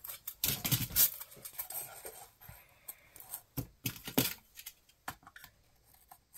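Foam core strips and a box cutter being handled on a workbench: a run of light knocks, taps and clicks as a strip is fitted into a wooden box, with the loudest knocks in the first second and another pair about four seconds in.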